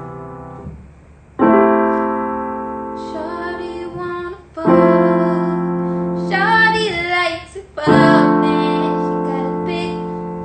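Slow, sustained chords played on a keyboard, a new chord struck about every three seconds and left to ring, with a woman singing softly over them without clear words.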